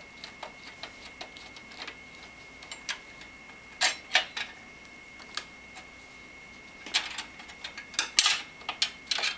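Screwdriver working the small screws out of the metal expansion-slot blanks of a Fractal Design Node 605 PC case, with light metal ticks and clicks. Louder clicks of the screws and slot covers being handled and lifted out come about four seconds in and again near the end.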